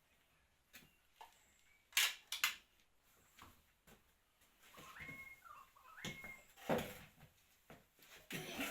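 Metal clicks and clinks of hand tools and parts during work on the 2RZ-E engine's exhaust manifold studs, with two short squeaks in the middle as a stud is threaded in.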